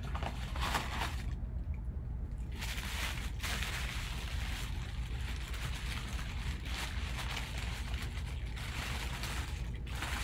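White tissue paper rustling and crinkling as gloved hands pull it away from a baseball. There is a short burst near the start, then almost continuous crinkling from about two and a half seconds in. A steady low hum runs underneath.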